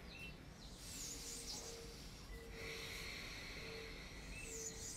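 Slow ujjayi breathing: a few audible breaths drawn through a narrowed throat, each a soft hiss about a second long. A faint steady tone comes and goes beneath it.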